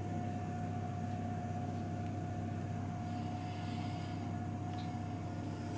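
Steady low machine hum with a thin constant whine above it, unchanging throughout.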